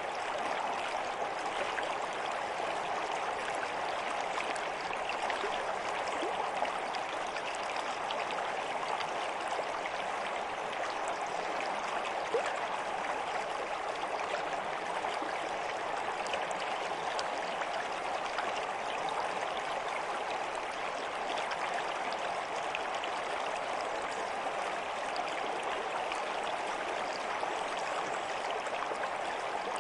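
Water of a stream flowing steadily, an even continuous rushing.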